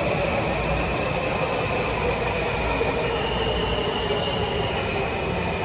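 Subway train running on the rails: a steady rumble of wheels on track, with a high whine over it that steps up in pitch about three seconds in.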